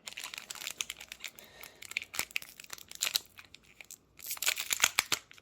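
Foil Pokémon booster pack wrapper crinkling and tearing as it is opened by hand, a run of crackly rustles that gets loudest about four seconds in.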